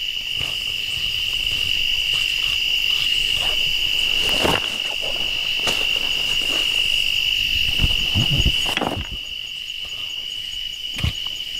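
Crickets chirring in one steady, unbroken high drone, with a few brief knocks and rustles of handling close by.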